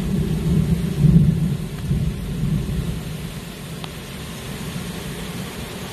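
Heavy rain pouring down with a low rolling rumble of thunder, loudest about a second in and dying away by the middle.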